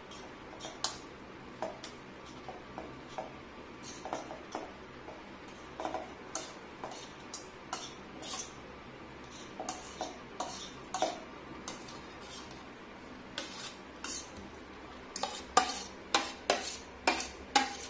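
Metal fork clinking and scraping against a plate and a stainless steel dog bowl as food is scraped off the plate into the bowl: scattered sharp clicks that come faster and louder near the end.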